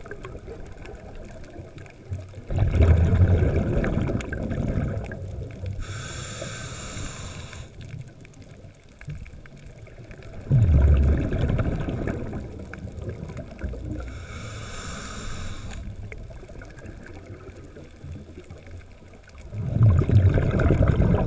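Scuba diver breathing through a regulator underwater: three loud bursts of exhaled bubbles about eight seconds apart, each lasting a couple of seconds. Between them come two shorter hissing inhales through the regulator.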